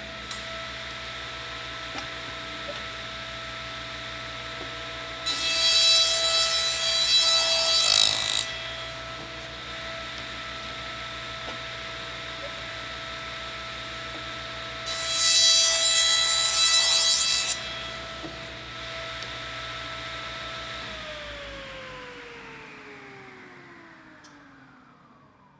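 Electric saw running free with a steady whine, biting into material twice for about three seconds each, loud and harsh. Near the end the saw is switched off and its whine falls in pitch and fades as the blade winds down.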